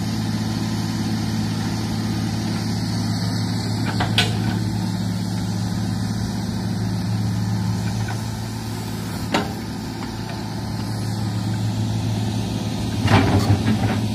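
Hitachi crawler excavator's diesel engine running steadily as it digs, with a single sharp knock about four seconds in, another about nine seconds in, and a quick cluster of knocks near the end.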